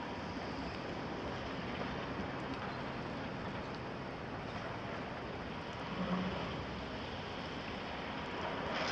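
Heavy construction machinery and a tipper truck's engine running at a distance as a steady rumble, with a short low thud about six seconds in and a sharp clank near the end.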